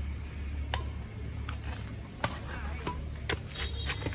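Badminton rackets striking a shuttlecock in a fast rally: a string of sharp clicks about every half second, the loudest about two seconds in, some with a short ring. A steady low rumble lies underneath.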